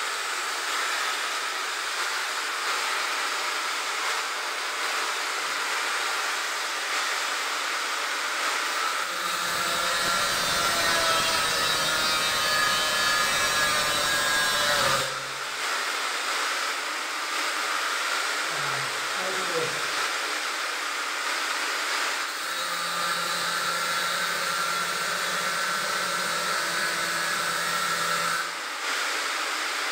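Angle grinder cutting into a steel beam: a steady motor whine under the harsh hiss of the disc on metal. It gets heavier from about 9 to 15 seconds, drops off briefly, then carries on.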